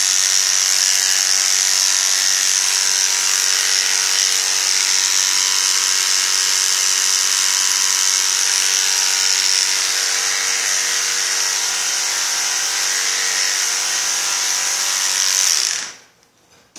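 Electric dog-grooming clippers running with a steady buzz while clipping a Yorkshire Terrier's coat, switched off abruptly shortly before the end.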